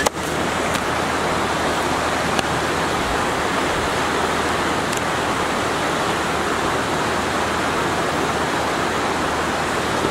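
Shoshone River whitewater rushing over rocks in fast rapids: a steady, even rush of water.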